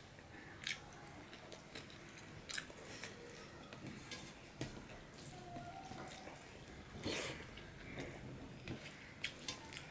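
Soft sounds of eating rice and curry by hand: faint wet mouth clicks and smacks of chewing, now and then, with fingers squishing and mixing rice on a steel plate.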